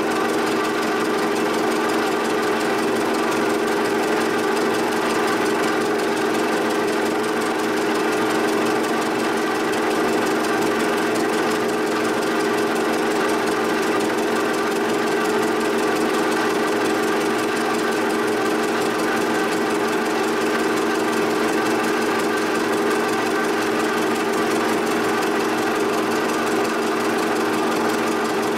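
Giddings & Lewis horizontal boring mill taking a milling cut along the cast iron shaper casting, the spindle and cutter running with a steady pitched hum and cutting noise that does not change.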